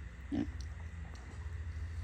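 A pig giving one short grunt about half a second in, over a steady low rumble.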